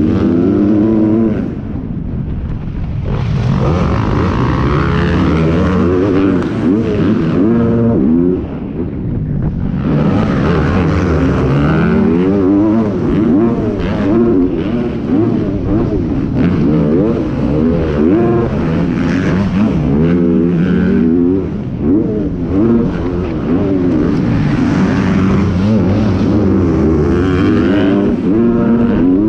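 Motocross dirt bike engine under race throttle, its pitch climbing and falling over and over as the rider accelerates, shifts and backs off, with brief drops when the throttle closes about two seconds in and again around eight seconds.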